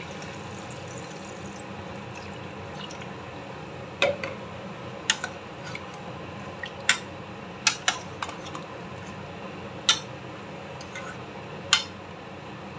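Metal ladle clinking and scraping against the inside of an aluminium pressure cooker pot while stirring chicken pieces in water: about seven sharp, separate clinks starting about four seconds in, over a steady low hiss.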